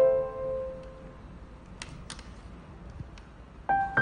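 Soft background piano music: a note rings and fades over the first second, then a lull holding a few faint clicks, and the melody comes back in near the end.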